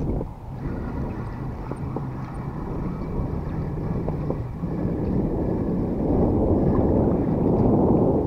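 Strong wind buffeting the microphone, a low rumbling rush that grows louder about halfway through, with a few faint clicks.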